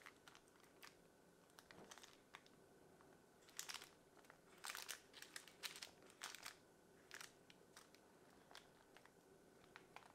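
Faint, scattered crinkles and ticks of grated cheese being sprinkled and pressed by hand onto twisted puff-pastry straws on silicone baking paper, busiest in the middle few seconds.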